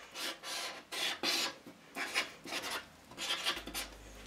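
Felt-tip marker writing on paper: a quick run of short scratchy strokes as letters are drawn, stopping a little before the end.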